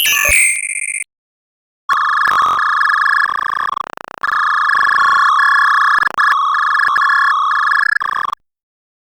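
Digital glitch sound effects: a short, high stuttering electronic burst lasting about a second, then after a gap a longer glitch of steady electronic tones chopped into rapid stutters, with a brief dropout in the middle, cutting off abruptly.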